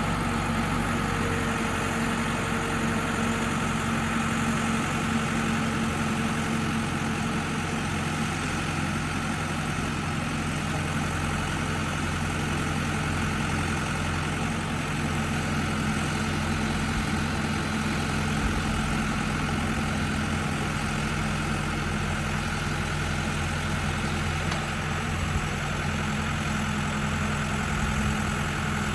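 New Holland 575E backhoe's diesel engine idling steadily, with no change in speed.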